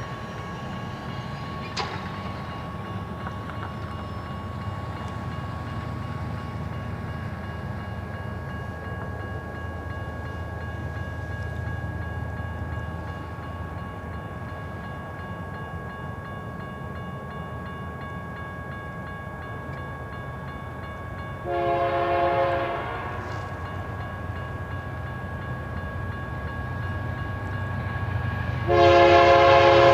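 Diesel freight locomotive's multi-chime air horn sounding as it approaches a grade crossing: a short blast about two-thirds of the way through, then a louder blast near the end that carries on. Beneath it, a low rumble and a steady high ringing tone, which fits the crossing signal's bell.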